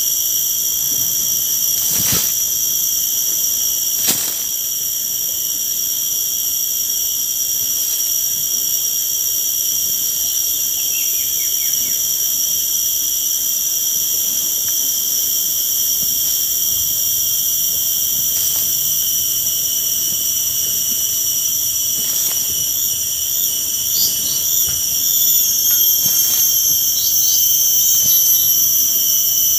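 Forest insects droning in a steady chorus of several constant high-pitched tones, with two sharp clicks a couple of seconds in and a few short chirps near the end.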